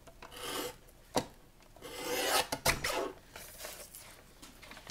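Paper trimmer cutting through brown envelope paper: a short rasp, a sharp click about a second in, then a longer scraping cut with a knock partway through.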